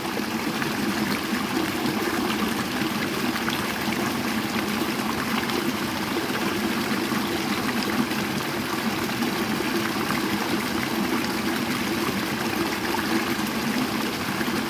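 Water of a small rocky stream running and trickling steadily.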